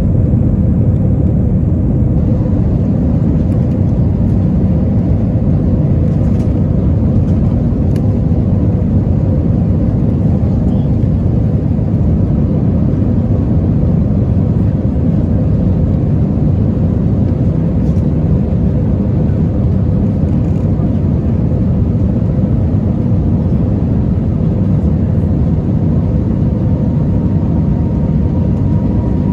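Jet airliner cabin noise during the climb after takeoff: a loud, steady roar of the engines and rushing air, with a steady hum running through it.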